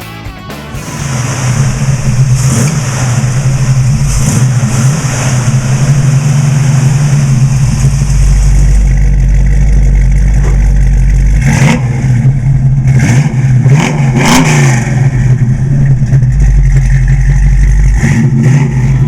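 The 351 Cleveland V8 of a 1973 Ford Mustang Mach 1 running loud and steady, revved up and back down twice a little past halfway.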